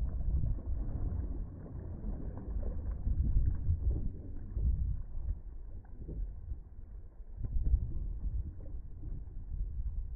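Wind buffeting the microphone in gusts, a low rumble that swells and fades, over choppy river water sloshing against a boat's hull.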